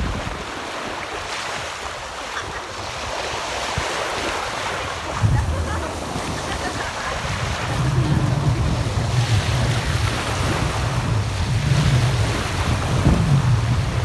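Small sea waves breaking and washing up the shore in a steady surging hiss, with wind rumbling on the microphone from about five seconds in, growing louder towards the end.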